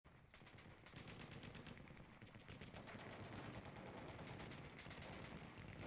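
Faint rapid automatic gunfire, long strings of shots at about ten a second, fading in over the first second.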